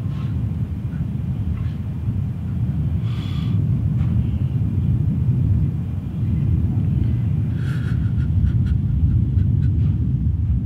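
A steady deep rumble with no clear pitch, with a few faint ticks near the end.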